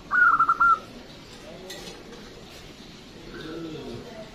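Caged zebra dove (perkutut) singing. A loud phrase of quick, clipped cooing notes fills the first second, then a quieter pause with a single click.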